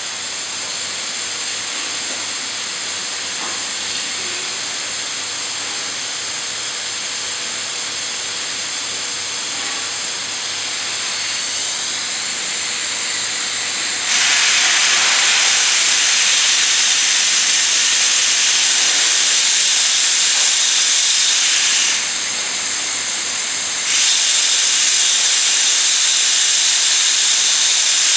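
Steam hissing out of a Victorian 25 hp mill steam engine as it is started up and a handwheel valve is turned. The hiss is steady, jumps louder about halfway through, drops back briefly and then rises again.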